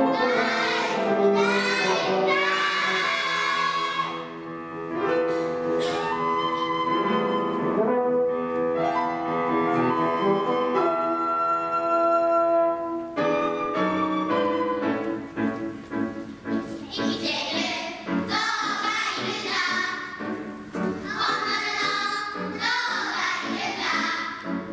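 A large choir of adults and children singing with piano and instrumental accompaniment. In the middle the music settles into long held notes, and the full choir sings out again near the end.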